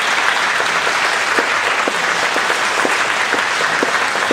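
Congregation applauding steadily with many hands clapping.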